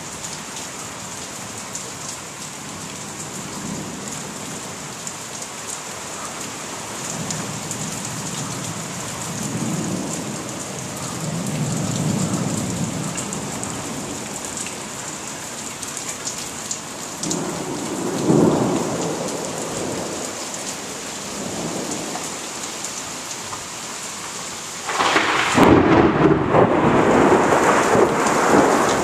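Steady heavy rain with thunder rolling in slow rumbles that swell and fade several times. Near the end a much closer thunderclap cracks in suddenly, far louder, and keeps rumbling.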